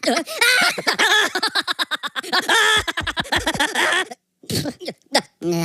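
A person's voice talking animatedly for about four seconds, then stopping, followed by a few short voiced sounds near the end.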